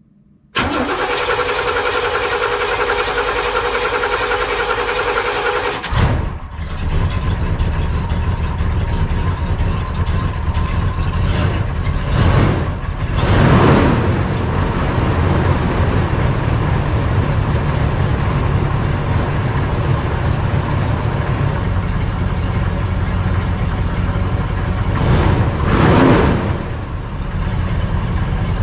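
Truck engine running, loud and steady. The sound changes suddenly about six seconds in and settles into a low, even run, with a few brief swells.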